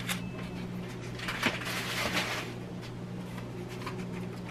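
Crinkling and rustling of a thin aluminium foil pie tin as the pie crust in it is handled, in a few short bursts, over a steady low hum.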